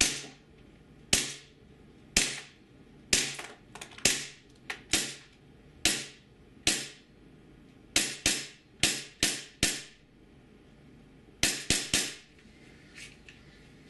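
WE Little Bird (Toucan) gas blowback airsoft pistol firing about twenty shots at a steady pace, each a sharp crack of gas and slide blowback with a short ringing tail. There is a brief pause about two-thirds of the way through, then a quick string of four shots.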